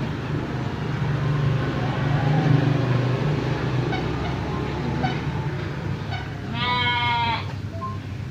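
Livestock-pen sounds: a low drawn-out drone for the first few seconds, then about seven seconds in one short, high-pitched bleating call from a farm animal.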